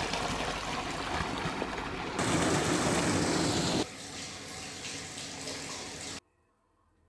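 Rain-swollen stream rushing and splashing, a steady noise of water. It drops quieter about four seconds in and stops abruptly about six seconds in.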